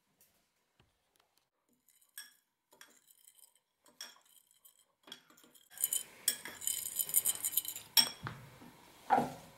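Metal fork stirring dry cake mix in a small glass bowl, rapidly clinking and scraping against the glass for a couple of seconds, after a few light scattered taps. A single duller knock comes near the end.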